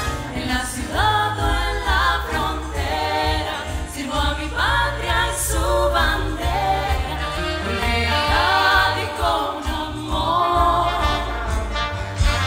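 Live big band music with a singer's voice over the band, taken straight from the digital mixing console's feed.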